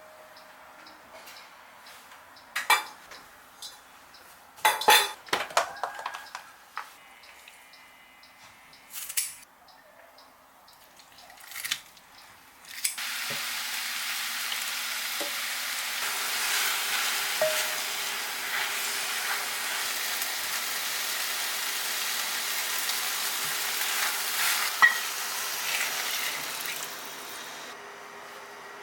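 Scattered clinks of utensils and dishes, then about halfway through food starts sizzling in a hot frying pan, a steady hiss that fades near the end.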